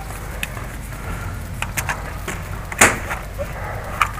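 Paintball fire: scattered, irregular sharp cracks, the loudest just before three seconds in, over a steady low rumble.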